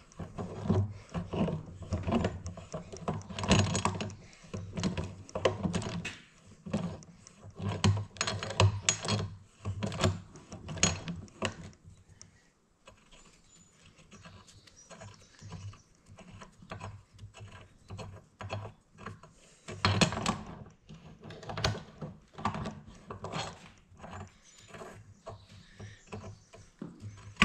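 Hand tools working on steel tractor-wheel hardware: a long run of irregular metallic clicks and clanks, thinning out for several seconds midway, with the loudest knock about twenty seconds in.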